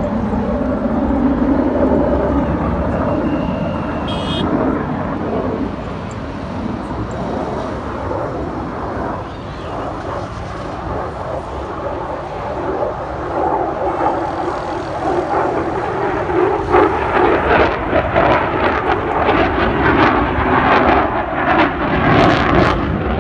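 Jet noise of an F-16 fighter flying a display overhead: a steady rumble that grows louder and rougher, with sharp crackles, over the last six or so seconds.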